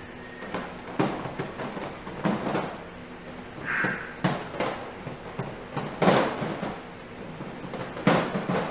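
Teacup puppies romping inside a wire playpen: a run of irregular knocks and thumps, the loudest about six and eight seconds in, with one short squeak about four seconds in.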